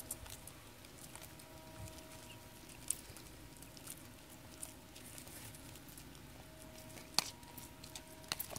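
Young Galápagos tortoises biting and chewing a prickly pear cactus pad: scattered faint crunching clicks, with sharper bites about three and seven seconds in.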